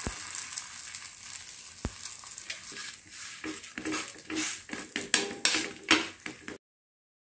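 Parotta dough sizzling in oil on a hot dosa tawa, with a couple of sharp clicks early on. In the second half a wooden spatula presses and scrapes it against the pan in a run of quick, louder strokes, before the sound cuts off abruptly.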